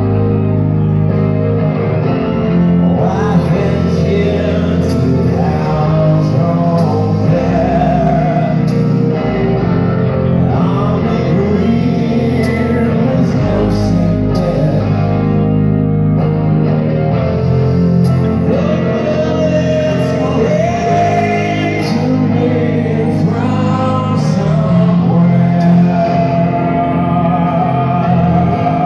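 Live rock band playing: electric guitar and a male lead vocal over a full band, echoing in a large concert hall as heard from the audience.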